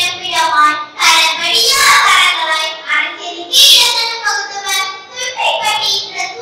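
A young girl's voice delivering a speech into a microphone, in long declaimed phrases with some words drawn out.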